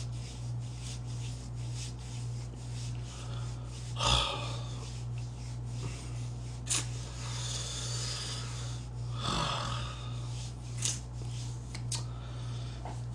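A steady low electrical hum under a man's breathing and the rub of his hands over his face. There are noisy breaths through the hands, the strongest about four seconds in and again near nine seconds, with a few small clicks.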